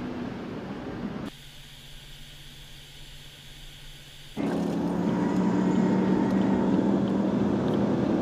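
U-2 reconnaissance aircraft engine noise, edited across shots: a steady rush of jet noise, an abrupt drop about a second in to a quieter steady hum with hiss, then about four seconds in an abrupt jump to louder steady engine noise with a low hum.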